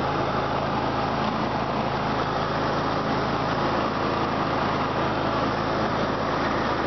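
Riding lawn mower's engine running steadily at a constant speed while the mower drives across grass.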